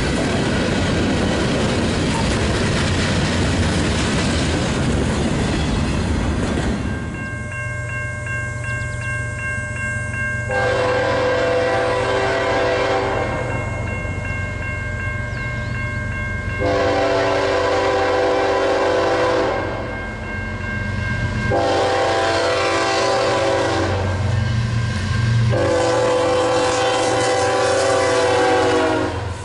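Freight cars rolling past with steady wheel-on-rail noise, then the horn of an approaching Norfolk Southern intermodal led by a GE ES44AC locomotive sounding four long blasts, the last the longest.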